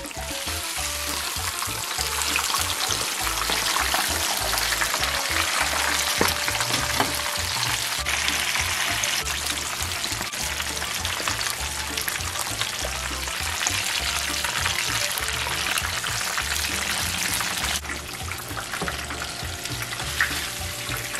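Whole flour-dusted mojarra (tilapia) deep-frying in hot vegetable oil in a pan, the oil sizzling with a dense, steady crackle.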